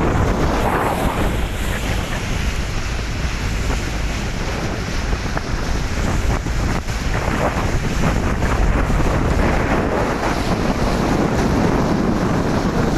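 Steady wind buffeting the microphone over water rushing past the hull of a catamaran under way at speed.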